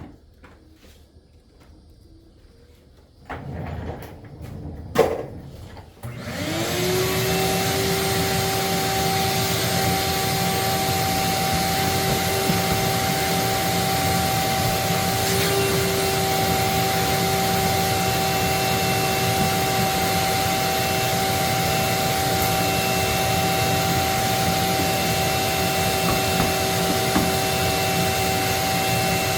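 A vacuum cleaner switches on about six seconds in, spins up and runs steadily with a constant whine. Before that there are a few knocks and handling sounds.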